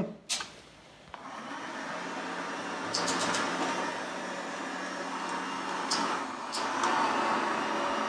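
Taurus Hexa Stryker robot vacuum cleaner switched on with a click. Its motor starts up about a second later and runs steadily as it moves off, with a few light clicks.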